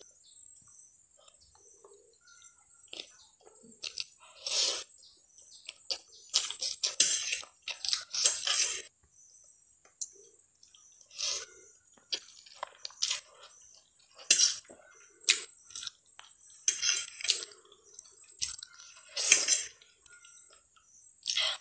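Person eating instant noodles with a fork: irregular, short slurps and chewing smacks, with now and then a light clink of the fork on the plate.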